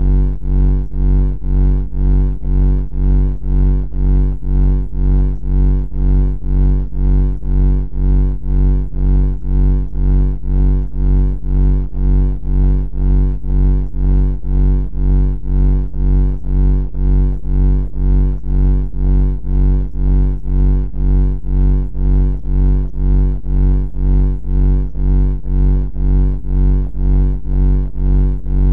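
A loud, low, droning buzz that throbs evenly about one and a half times a second and never changes.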